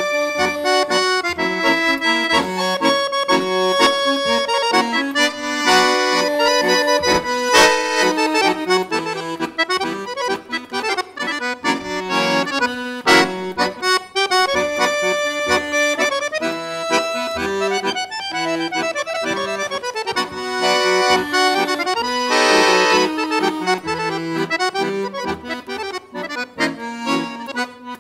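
Solo Cavagnolo accordion playing a traditional tune: a melody over a regular beat of bass notes and chords.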